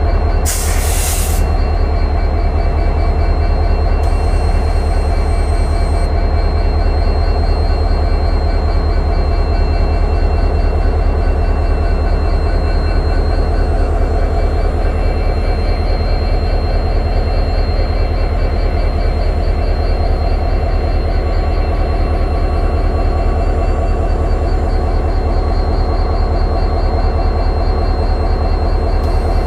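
WDP-4D diesel-electric locomotive's 16-cylinder EMD two-stroke engine humming steadily, with a deep low drone and a thin high whine over it. A short burst of hiss comes about a second in.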